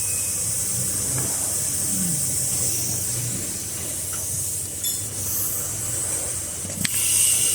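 Steady hiss of compressed air over a low machine hum from a screw air compressor. A sharp click comes near the end, and the hiss grows louder after it.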